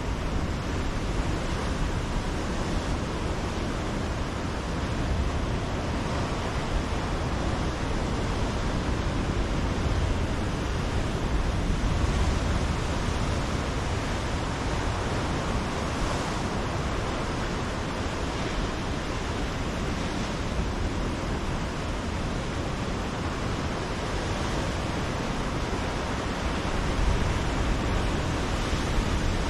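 Ocean surf breaking on a rocky shoreline: a continuous wash of noise that swells a little a few times as larger waves come in.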